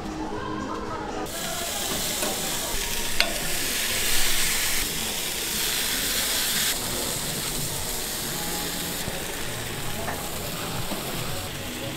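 Giant takoyaki batter and cheese frying in a hot cast-iron takoyaki griddle: a steady sizzle that sets in about a second in and jumps in level abruptly a few times, with one sharp click about three seconds in.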